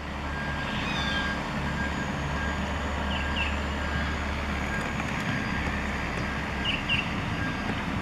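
JCB backhoe loader's diesel engine running steadily as the machine works, a low even engine noise.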